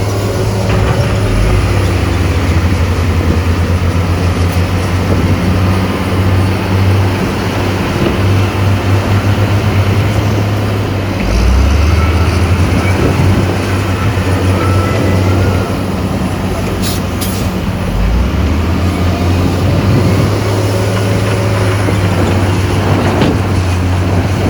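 Heavy diesel engines of earthmoving machinery running steadily under load; the deep engine note shifts a couple of times.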